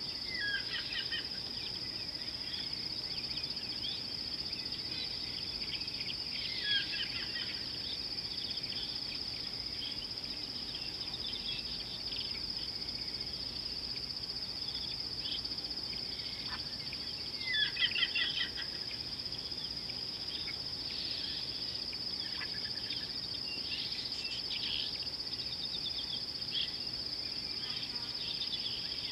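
A steady high insect drone, like a cricket chorus, with birds calling over it now and then; the loudest call is a quick run of falling notes about two-thirds of the way through.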